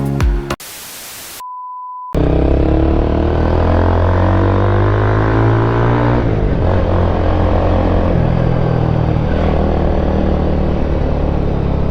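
A short burst of hiss and a steady beep, then a motorcycle engine with an aftermarket exhaust running loudly from about two seconds in. Its pitch climbs for a few seconds as it revs or accelerates, then holds steady.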